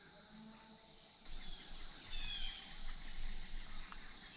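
Quiet woodland ambience: a faint steady high insect drone, with a few soft bird chirps about two seconds in.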